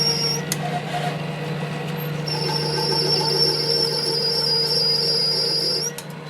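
Workshop machine running with a steady hum and a high-pitched whine. The whine cuts out with a click shortly after the start, comes back about two seconds in, and stops again with a click near the end.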